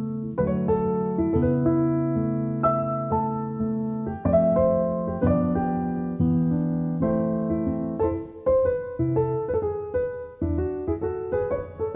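Background piano music: slow chords that ring and fade, then a quicker run of shorter notes in the last few seconds.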